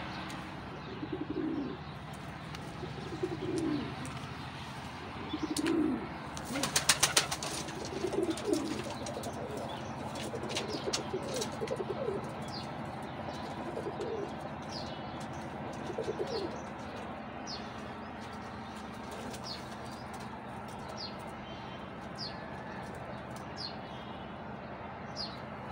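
Caged pigeons cooing, low rolling coos every couple of seconds, with a brief burst of wing flapping about seven seconds in. Later, short high chirps repeat about once a second.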